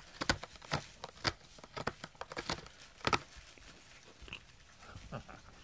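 A cat biting and chewing at a corrugated cardboard scratcher: irregular crunching and tearing clicks, dense for about three seconds, then sparser.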